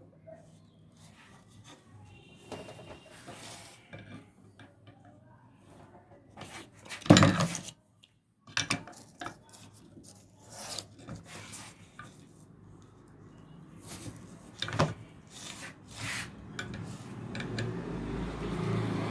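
Metal parts of an electric iron being handled and worked: scraping and rubbing, with scattered clicks and two sharp knocks. A low hum comes in near the end.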